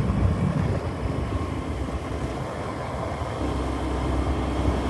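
A vehicle driving along a road: a steady low engine and road rumble with wind rushing over the microphone.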